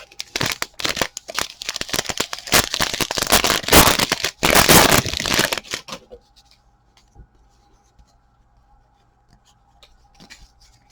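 Foil wrapper of a trading card pack being torn open and crinkled, a dense crackling tear that stops about six seconds in, followed by faint handling ticks.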